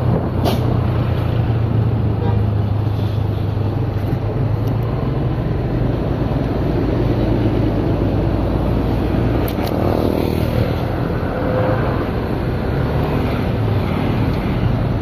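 A motor running steadily: a low, even drone with a rushing, wind-like noise over it.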